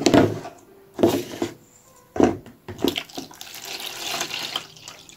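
Milk being poured into plastic containers: several short splashing pours about a second apart, then a longer trickling pour.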